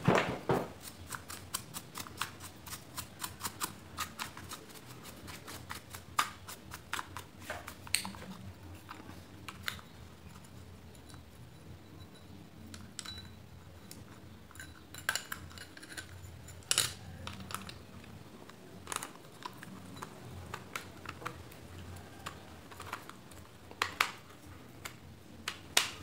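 Small metal parts of a Ventisol fan motor clicking and clinking as it is handled and put back together, with washers set on the rotor shaft and the rotor pushed into the housing against its bearing. A quick run of light clicks in the first few seconds, then scattered clicks and knocks.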